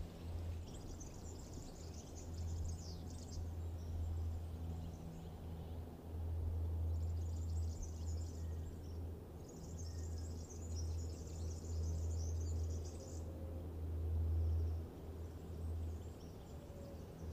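Insects chirping in high, rasping stretches of a few seconds each, over a low hum that swells and fades.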